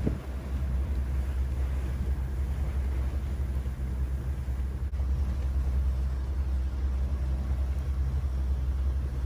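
Low, steady engine rumble.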